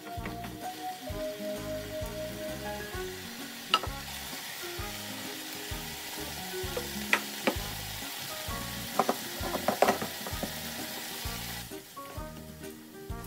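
Seasoned ground beef sizzling as it is stir-fried in a frying pan and its liquid cooks off, with a few sharp clicks as it is stirred with chopsticks. The sizzle drops away near the end. Soft background music plays throughout.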